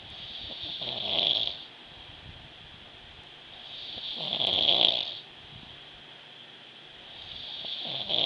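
A sleeping person snoring: three snores about three and a half seconds apart, each building in loudness and cutting off suddenly.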